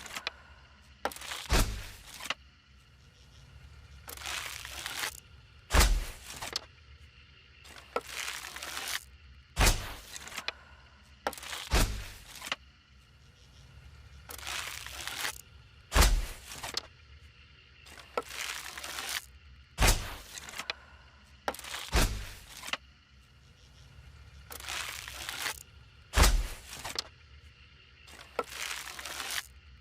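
Bow and arrow shot sound effect repeated about nine times, every three to four seconds: each shot is a short swish paired with a sharp thwack that has a low thump.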